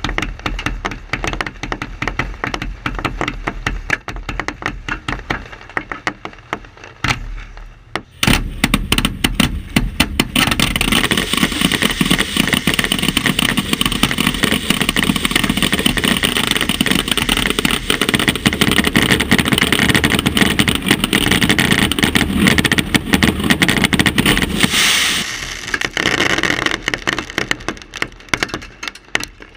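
Fireworks finale recorded right beside the firing positions: a rapid stream of bangs and crackles that grows into a dense, continuous barrage about eight seconds in, then thins to scattered pops near the end.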